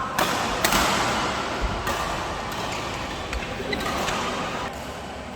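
Two sharp knocks on a badminton court, the stronger about half a second in and a fainter one near two seconds, over a steady hiss of hall noise.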